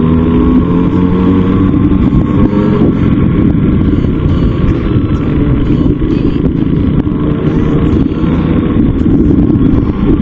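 Raptor 87 pocket bike's small stock engine running during a ride, heard over heavy rushing noise on the helmet camera's microphone; the engine's pitch is clearest at the start and fades into the noise partway through.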